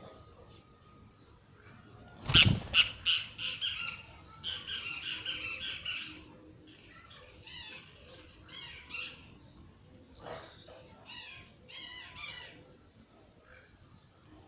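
Birds giving harsh, squawking calls in quick repeated series. The first call, about two seconds in, is the loudest and closest, and a dense run follows until about six seconds in. Shorter, fainter series come later.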